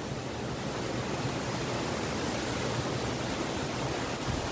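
Shallow stream running over stones: a steady rush of water.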